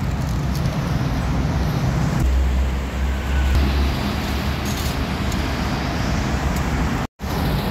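Steady noise of road traffic passing close by, with a deeper low rumble from about two to four seconds in. The sound cuts out for an instant near the end.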